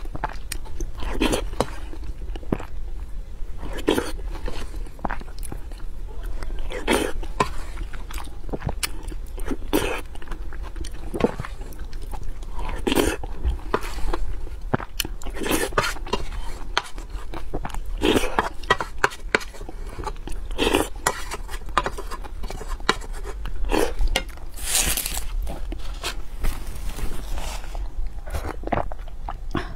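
Close-miked eating sounds from a lapel microphone: a woman chewing and smacking on spoonfuls of rice in broth, the bursts coming every second or two. About 25 s in there is a longer, hissy mouth sound, and a steady low hum runs underneath.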